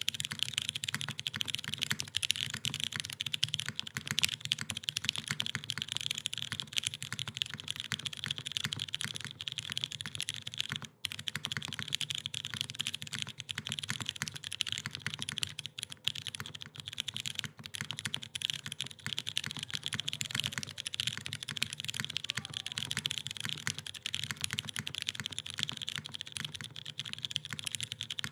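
Continuous rapid typing on a gummy O-ring-mounted 60% keyboard: polycarbonate case, aluminum plate, lubed and filmed MX Brown tactile switches and GMK keycaps. There is a brief pause about eleven seconds in.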